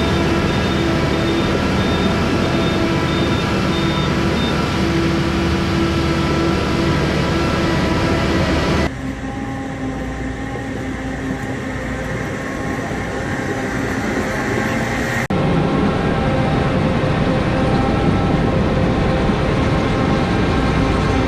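Heavy farm machinery running steadily, a loud mechanical hum with several steady tones, in three stretches joined by abrupt cuts about nine and fifteen seconds in; the middle stretch is quieter and duller.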